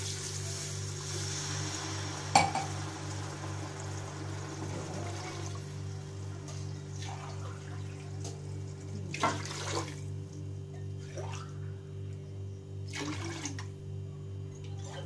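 Water poured from a glass into a cooking pot, glass after glass, with a sharp clink a little over two seconds in and a few shorter splashes later on.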